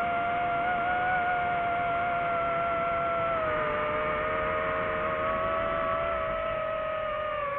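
DJI FPV drone's motors and propellers whining steadily in flight. The pitch dips slightly about three and a half seconds in as the throttle eases.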